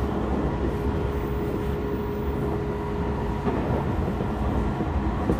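Tokyo Metro 16000 series electric train running, heard from inside the car: a steady rumble of wheels on rail with a single steady tone that stops about three and a half seconds in.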